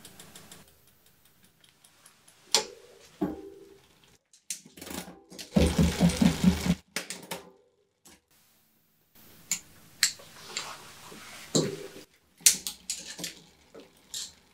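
Bicycle rear derailleur and chain clicking as the cranks are turned, with a rhythmic clattering burst about six seconds in that lasts a little over a second: the upper jockey pulley running against the teeth of the largest cassette cog, the sign of the pulley set too close to the cog. Scattered single clicks of chain and derailleur come before and after it.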